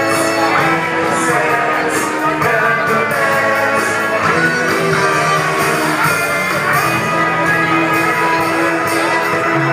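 Live psychedelic rock band playing, with electric guitar and drums with cymbals.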